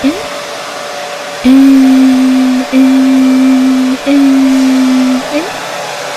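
A voice holding long, steady 'eeee' notes, three in a row of about a second each, over the constant whoosh of a hair dryer. This is a soothing sound for colicky babies.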